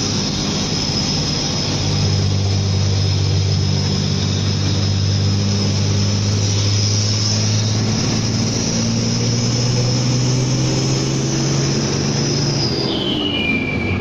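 Hino Ranger SG260Ti's turbodiesel engine pulling hard with a laden container trailer, heard from inside the cab, with a steady high turbo whine over the engine note. Near the end the throttle comes off: the engine note drops and the whine falls in pitch and fades.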